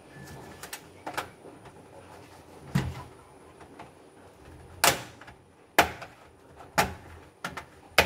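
Plastic snap clips of a Dell Inspiron 15 3000 laptop's bottom cover popping loose one by one as the cover is pried off: a series of sharp plastic snaps, roughly a second apart.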